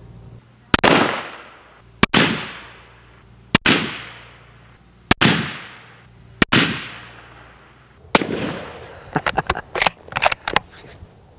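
Suppressed rifle shots through a Rugged Razor 7.62 compact suppressor: five sharp shots about a second and a half apart, each trailing off in a fading echo. About eight seconds in comes one more shot, followed by a quick run of metallic clicks as the bolt is worked.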